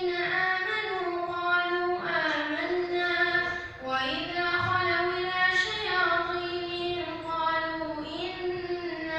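A boy's voice chanting a Quran recitation in the melodic, drawn-out tajweed style. He holds long notes that bend and ornament in pitch, pausing only briefly between phrases.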